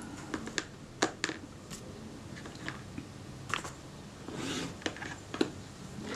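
Scattered light clicks and taps of small metal camera parts and tools being handled, as a Kodak Retina IIIS rangefinder unit is lifted out of the camera body. A brief soft rustle comes about four and a half seconds in.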